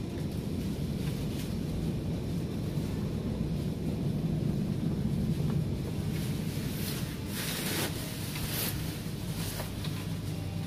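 Steady low rumbling noise, with a few brief rustles about seven to nine seconds in.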